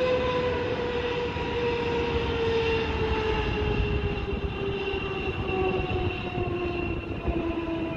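Widebody twin-jet's turbofan engines running at high power: a rushing rumble under a whine that slowly falls in pitch.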